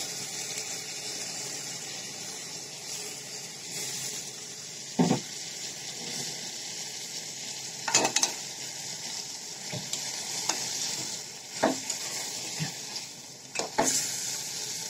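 Chicken curry sizzling in a metal pot while roasted mung dal is stirred in with a metal spatula, which scrapes and knocks sharply against the pot a few times.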